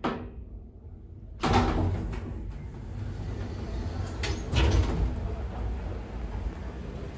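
Elevator car's automatic sliding doors opening at the ground floor. There is a sudden clunk about a second and a half in as they start to move, then a steady low rumble, with a couple more knocks a few seconds later.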